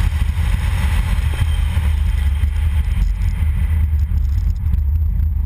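Car driving along a rough rural road, heard through a camera mounted on the outside of the body: a heavy, steady low rumble of wind buffeting the microphone and tyres on the road, with a higher hiss that dies away about four seconds in.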